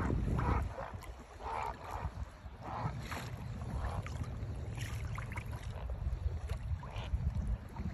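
Wind buffeting the microphone with a steady low rumble, while small waves lap and splash against a Hobie Outback kayak's hull in short bursts every second or so.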